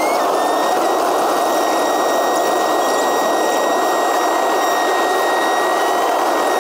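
Steady road and wind noise of a car cruising at highway speed, with a thin steady whine over it.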